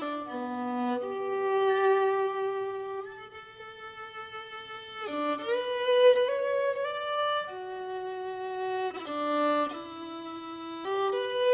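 Music: a violin playing a slow melody of long held notes that move in steps.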